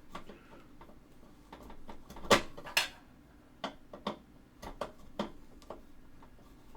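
Scattered clicks and knocks of parts and a tool being handled in a computer case, with two sharper clicks close together about two and a half seconds in.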